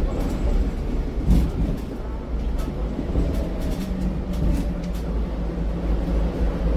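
Interior ride noise of a Scania Citywide articulated city bus: a steady low rumble from the engine and road, with scattered light rattles from the cabin fittings. From about halfway, a faint whine falls slowly in pitch.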